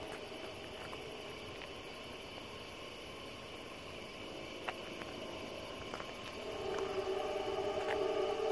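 Horn of an approaching New England Central freight locomotive sounding for the grade crossing: a steady chord that comes back louder about six and a half seconds in. Under it runs a fast, even high pulsing of night insects.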